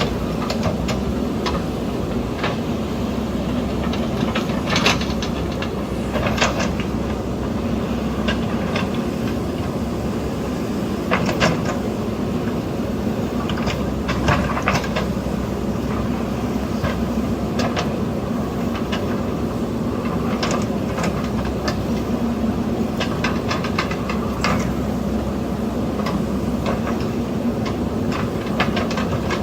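Backhoe loader's diesel engine running steadily under work, with clanks and scrapes now and then, clustered about five, eleven, fourteen, twenty and twenty-four seconds in.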